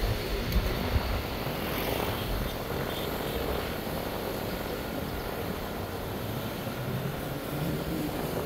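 Steady roar of road traffic, cars and a motorcycle passing on the road, with an uneven low rumble under it.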